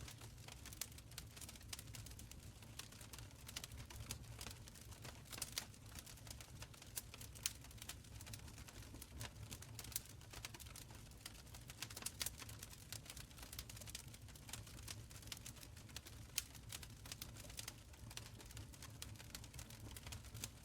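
Wood fire burning in a stone fireplace, crackling with many small irregular pops and snaps over a low, steady rumble of flames.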